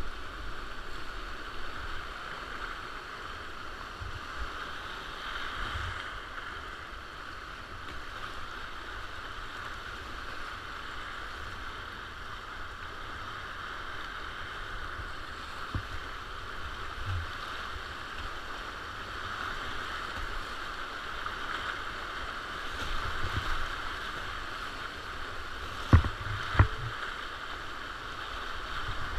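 Whitewater rapids of an alpine river rushing past a kayak, a steady hiss of water with scattered low thumps. A few sharp knocks near the end.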